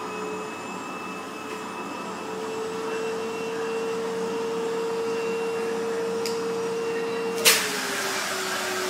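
Vacuum cleaner running steadily with a high motor whine whose pitch steps up slightly about two seconds in. A sharp knock comes about seven and a half seconds in, after which the whine drops a little lower.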